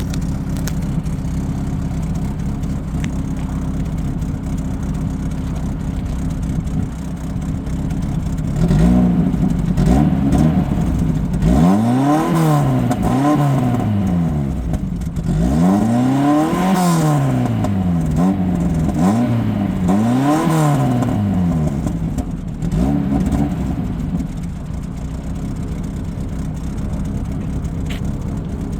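Peugeot 205 Rallye's four-cylinder petrol engine idling, then blipped repeatedly from about nine seconds in: roughly half a dozen quick revs, each rising and falling in pitch. It settles back to a steady idle near the end.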